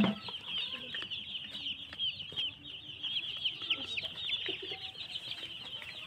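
A large flock of young broiler chicks peeping without pause, many short high chirps overlapping into one continuous chorus.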